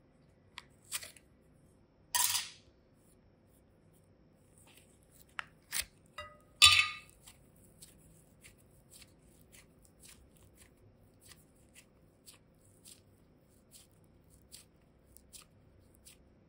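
A small plastic clay box is handled and opened with a few sharp plastic clicks and snaps, the loudest about two seconds and about seven seconds in. Then come faint, repeated sticky clicks of soft modelling clay being squeezed and kneaded in the hands.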